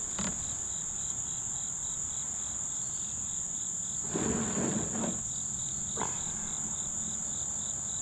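Insects trilling: one high, steady buzz, with a second, lower insect chirping in a fast, even pulse. A short rustle of handling comes about four seconds in, and a single click about two seconds later.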